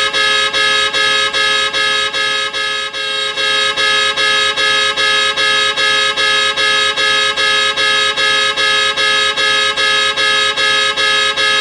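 Car alarm sounding the car's horn in fast, even beeps, about four a second, loud and unbroken apart from a brief softening about three seconds in.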